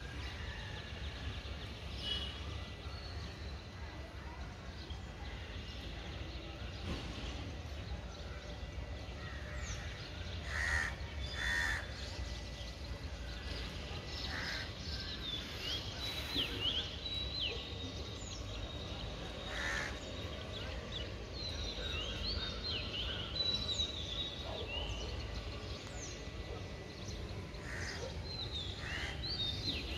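Birds calling throughout, with many short high chirps and a few louder, harsher calls scattered through, over a steady low rumble.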